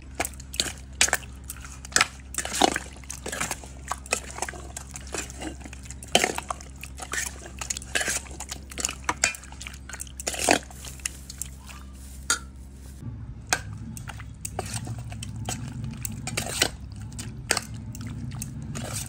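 Metal spoon stirring marinated chicken pieces in a stainless steel bowl: irregular clinks and scrapes of spoon against steel, with the wet squelch of the thick marinade.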